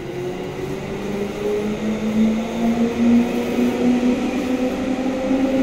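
JR East 211 series electric train accelerating away from the platform: the hum of its traction motors rises steadily in pitch and grows louder over the running noise of the wheels on the rails.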